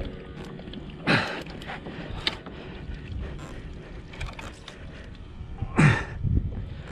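Two loud splashes of water against a plastic kayak hull, about a second in and near the end, over the steady wash of wind and water around the kayak.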